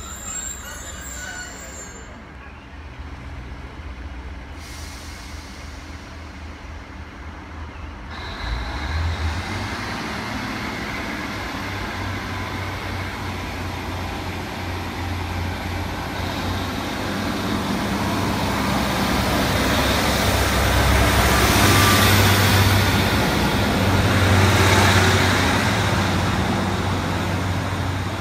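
Class 155 Super Sprinter two-car diesel multiple unit pulling away from a station stop: its underfloor Cummins diesel engines idle, open up sharply about a third of the way in, and grow louder as the unit accelerates past, loudest near the three-quarter mark before easing off.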